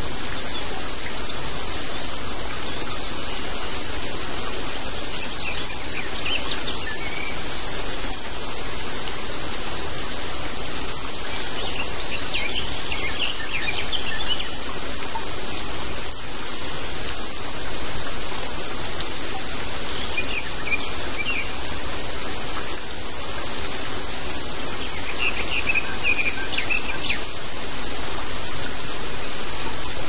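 Steady summer rain, an even hiss, with a small bird chirping in short bursts a few times.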